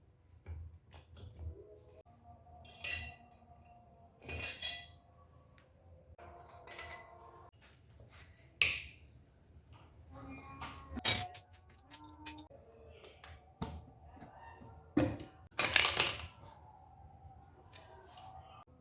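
Irregular metallic clinks and knocks of tools and small metal parts being handled, about a dozen separate strikes with pauses between. A brief high ringing comes a little past halfway.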